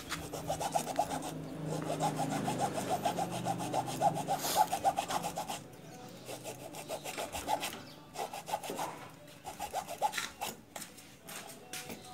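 Hand saw cutting through the plastic case of a sealed (dry) motorcycle battery along the lid seam, in rapid short back-and-forth strokes that pause briefly a few times.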